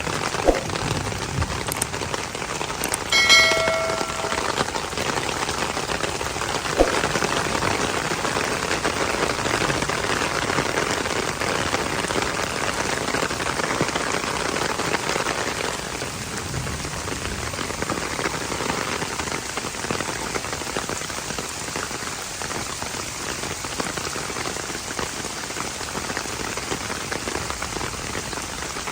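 Heavy rain falling steadily. A brief ringing tone sounds about three seconds in, and there are a couple of sharp ticks.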